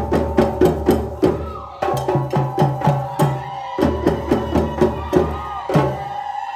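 Background music with a steady percussive beat of about four clicky strikes a second over a bass line.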